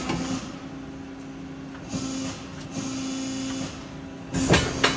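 Hydraulic CNC press brake bending 1/4-inch steel plate in a 1-inch V die: a steady machine hum that comes and goes as the ram works, then a loud burst about four and a half seconds in and a sharp click just before the end.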